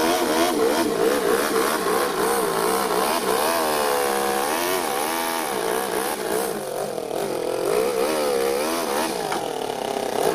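Toyan FS-L200 inline twin-cylinder four-stroke nitro engine in an RC truck, running through twin upright smokestack exhausts and revving up and down as the throttle is worked, with one longer rise and fall in pitch near the middle. It is a new engine still on its first few tanks of running in.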